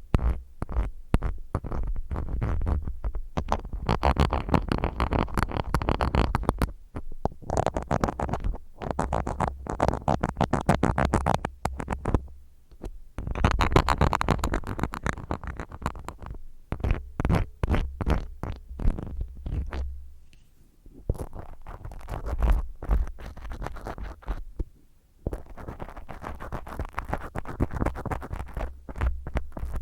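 Spiral ear cleaner rubbed roughly and fast inside a binaural microphone's ear: dense scratching strokes close to the ear, in runs of a few seconds with short pauses, and a low rumble under them.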